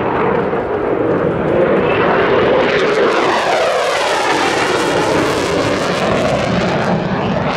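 Eurofighter Typhoon's twin EJ200 turbofan engines roaring loud and steady as the jet makes a close pass and pulls away. The sound takes on a sweeping, phasing quality in the middle as it goes by.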